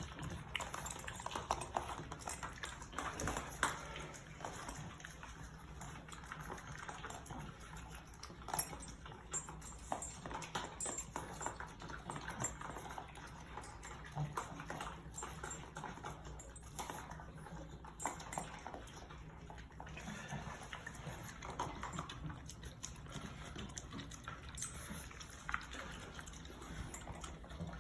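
French bulldogs eating raw meat from their bowls: wet chewing and licking, with many small irregular clicks.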